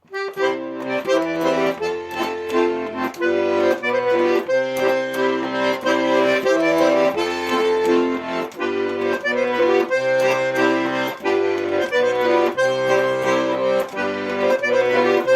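Instrumental song introduction: held chords over a changing bass line in a steady rhythm, with no voice.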